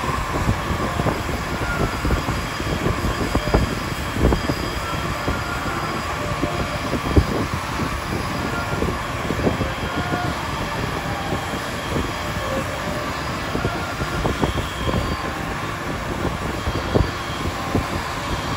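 Alstom NS-16 rubber-tyred metro train running at speed, heard from inside the car: a steady running rumble with scattered knocks and clatters and faint whining tones.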